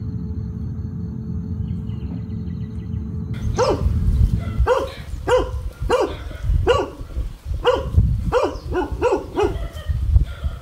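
A dog barking repeatedly, about two short barks a second, starting some three seconds in after a steady low rumble.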